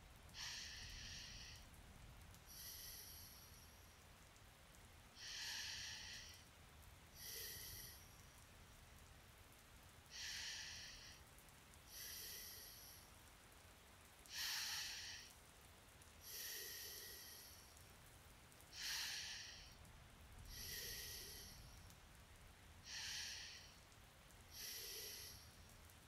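A man breathing slowly and heavily in sleep. Each breath is a soft hiss in and a shorter hiss out, repeating about every four seconds, six breaths in all.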